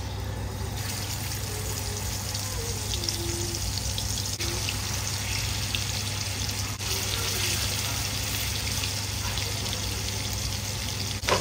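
Marinated chicken drumsticks sizzling as they shallow-fry in hot oil in a wide black kadai, more pieces being laid in during the frying; the sizzle picks up about a second in. A low steady hum runs underneath.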